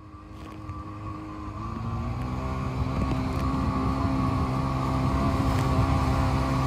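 Jet ski engine running under way, rising in pitch about two seconds in and growing steadily louder, with water spray rushing along the hull.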